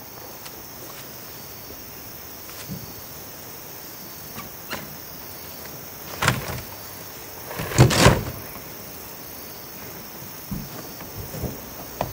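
A few scattered knocks and scrapes, the loudest pair about eight seconds in, over a steady hiss.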